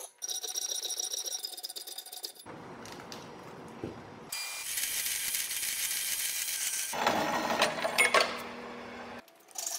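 Steel plate being sawn, in several short sections: first saw strokes with the plate ringing in clear metallic tones, then a small JET bandsaw cutting steel with a steady hiss, with a few clicks near the end.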